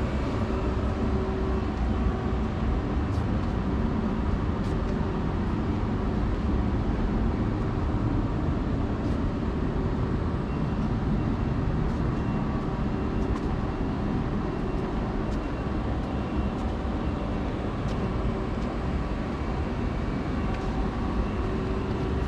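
Steady mechanical background noise of shop machinery: a low hum with a faint higher whine, and a few faint clicks.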